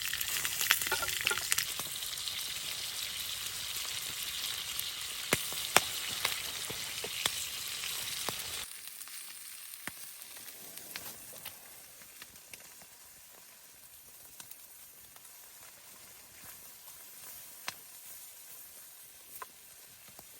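Steady sizzling hiss over a fire, with sharp pops and crackles. It cuts off abruptly about nine seconds in, leaving a much quieter hush with a few faint crackles.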